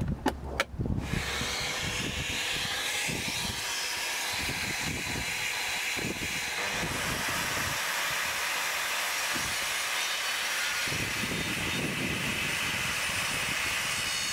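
A few handling knocks, then a dust extractor (shop vacuum) switched on about a second in, running with a steady hiss.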